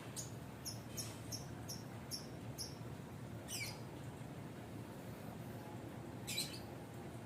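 A string of short, high-pitched chirps, about two a second, then two calls that sweep steeply down in pitch, over a faint low steady hum.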